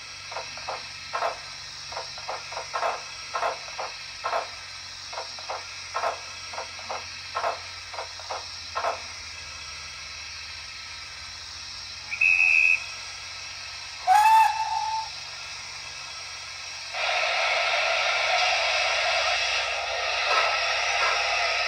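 Digital sound decoder (Youchoos sound) in a Bachmann OO-gauge D11 steam locomotive model, playing through its small speaker. A run of short, irregular knocks lasts about nine seconds. A brief high whistle sounds about twelve seconds in, then a steam whistle about two seconds later. From about seventeen seconds a steady steam hiss begins as the locomotive readies to depart.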